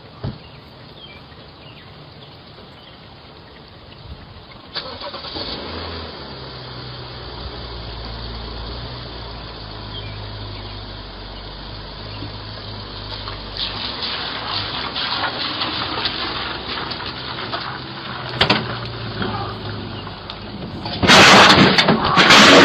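A motor vehicle engine starts about five seconds in and runs with a steady low hum, the noise growing over the next several seconds. Near the end a much louder burst of noise cuts in.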